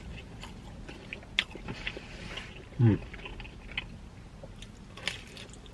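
Close-up chewing of pizza: wet mouth clicks and crackles, with a short voiced hum about three seconds in.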